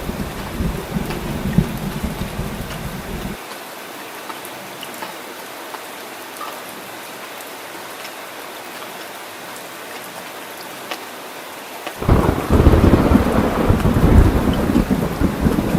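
Heavy rain falling steadily with deep rumbling thunder. The rumble cuts off abruptly about three seconds in, leaving only the rain hiss, then comes back suddenly and louder about twelve seconds in.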